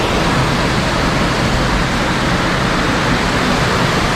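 Loud, steady rush of spring water pouring out of a cliff face, an unbroken roar of flowing water.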